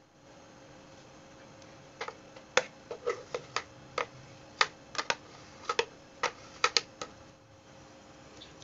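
A spoon tapping and scraping against a plastic blender jar while thick mango ice cream mixture is scraped out of it: about fifteen sharp, irregular clicks between about two and seven seconds in.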